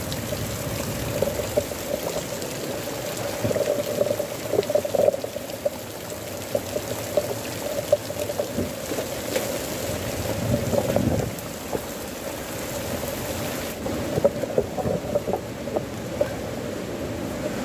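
Heavy rain falling with water pouring and rushing: a steady hiss with crackling spatters throughout.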